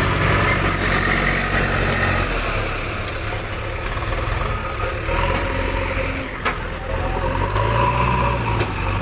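Diesel engines of a JCB backhoe loader and a tractor running under load as the loader's front bucket pushes an overloaded, paddy-laden tractor trailer. The engine note drops about two seconds in and rises again near the end, with one sharp knock a little after the middle.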